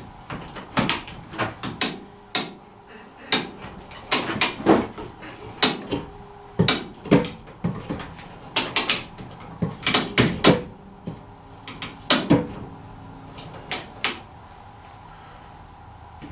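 A run of sharp metal clanks and knocks, a few leaving a short ring, as heavy rear-axle parts and tools are handled. They stop a couple of seconds before the end.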